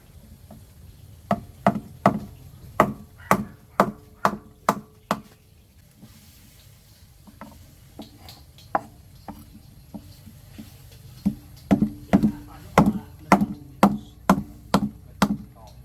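Food being chopped with a knife on a cutting board: two runs of steady, sharp chops at about two a second, the first near the start and the second near the end, with a few softer taps in between.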